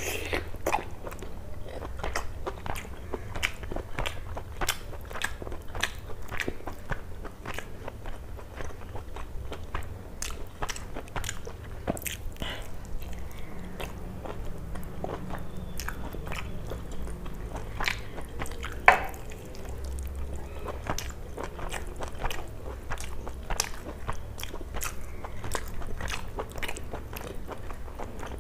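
Close-miked eating: biting meat off a chicken curry drumstick and chewing with many small wet mouth clicks, one click about two-thirds of the way through louder than the rest.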